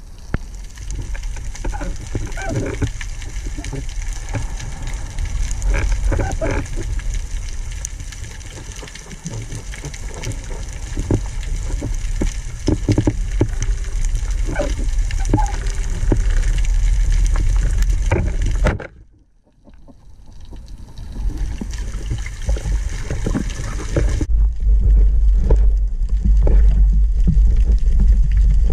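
Underwater sound through a diving camera's housing: a steady rush of moving water scattered with short clicks and crackles, dropping out briefly about two-thirds of the way through. In the last few seconds, with the camera at the surface, it becomes a heavier, low rushing and sloshing of water.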